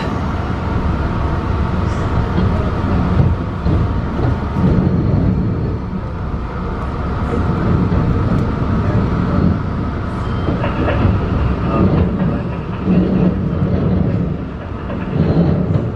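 Running noise inside a Long Island Rail Road M3 electric multiple-unit train under way: a steady, loud rumble of wheels on rail, with a faint steady hum above it and occasional light clicks.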